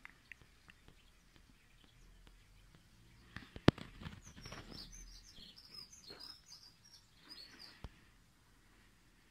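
Songbird chirping: a quick run of high chirps and whistles from about four seconds in to about seven. Just before it come a few sharp clicks, one of them loud.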